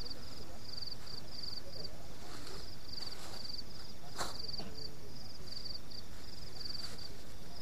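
Crickets chirping at night: a high, rapid pulsed chirp repeated two or three times a second without a break. About four seconds in there is one sharp click.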